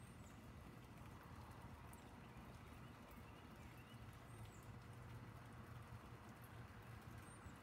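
Near silence: faint outdoor background with a steady low rumble and a few brief, faint high chirps.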